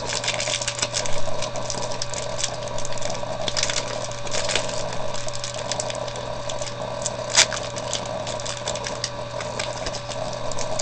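Foil Pokémon booster pack crinkling and crackling as it is torn open, with many sharp crackles and one louder click about seven seconds in, over a steady hum.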